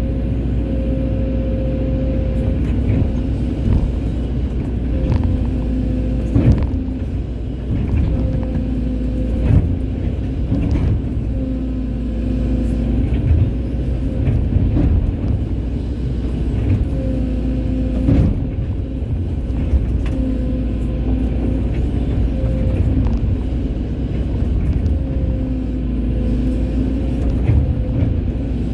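Hydraulic excavator running under load: a steady low engine rumble with a humming pump tone that comes and goes as the machine works, and a few sharp knocks, the loudest about six, nine and eighteen seconds in.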